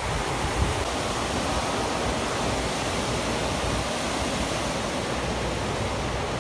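Hurricane-force wind and heavy rain blowing steadily: an even, loud rushing noise with no breaks.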